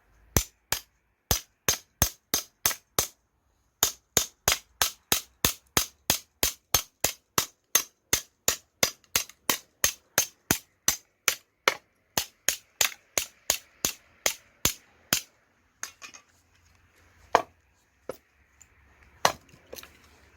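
Firewood being chopped or split into kindling: a rapid run of sharp strikes on wood, about three a second, with a brief pause about three seconds in. The run stops around three quarters through, followed by two single strikes.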